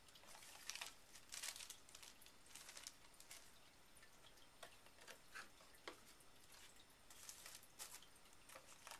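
Faint rustling and crinkling of a plastic wrapper, paper and cardboard as a camcorder and its packing are handled in the box, in short irregular bursts.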